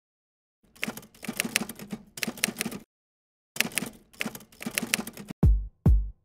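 Typewriter sound effect: two runs of rapid key clacking with a short pause between them, then two deep bass-drum hits near the end as electronic outro music starts.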